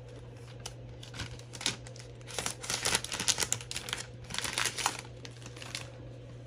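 Thin protective wrap being peeled off a new tablet by hand, a run of rustling and crinkling, mostly from about two seconds in until near the end.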